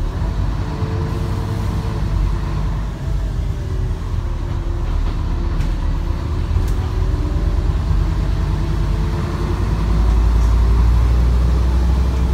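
Scania N230UD double-decker bus with a five-cylinder diesel, running under way. The low engine rumble carries a faint whine that drifts slowly up and down in pitch, and it grows louder and deeper about ten seconds in as the bus pulls harder.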